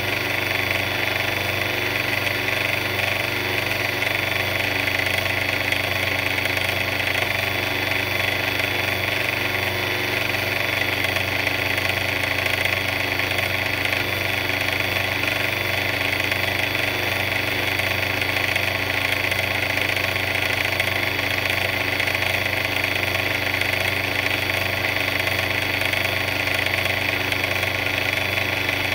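A big mixer running steadily with an even, unchanging mechanical drone.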